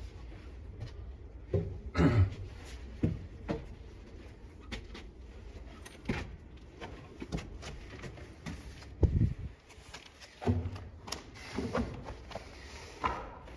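Footsteps going up bare wooden stairs and onto old floorboards: irregular thumps and knocks, often about a second apart.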